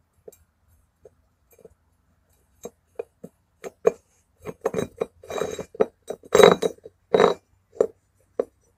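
Bronze through-hull fitting clinking and knocking against the hull as it is worked by hand into a tight-fitting hole. A few scattered clicks come first, then faster, louder knocks with short scrapes, loudest about six and a half seconds in.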